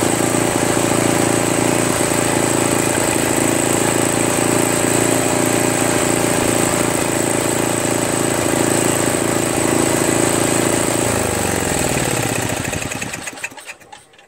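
Tecumseh single-cylinder four-stroke engine on a Craftsman 522 two-stage snowblower running steadily off choke, running well after a carburetor cleaning. About eleven seconds in it is shut off and winds down to a stop over a couple of seconds.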